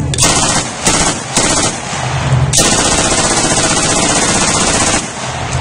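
MG42 machine gun firing blanks from a 50-round belt at its very fast rate of fire: three short bursts in the first two seconds, then one long burst of about two and a half seconds that stops abruptly.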